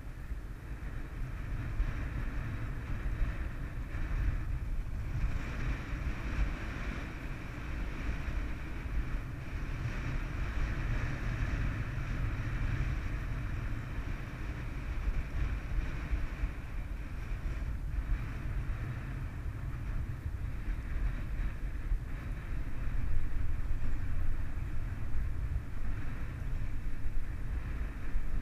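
Wind buffeting the camera microphone in a steady low rumble, gusting stronger near the end, over the wash of choppy water slapping against a concrete bulkhead.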